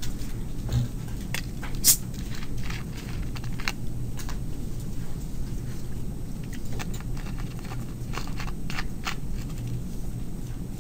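Room tone in a pause of a lecture: a steady low hum with scattered small clicks and knocks, the sharpest about two seconds in.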